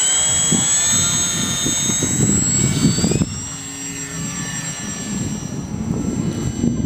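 Extra 300 aerobatic plane flying, its engine note rising in pitch over the first three seconds and then dropping away, with strong wind buffeting the microphone.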